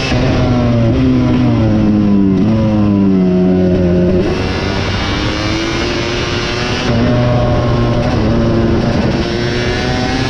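KTM 250 SX two-stroke motocross bike engine at racing revs, its pitch falling over the first few seconds as it comes off the throttle, then picking up again and running hard, with another shift in pitch near the end.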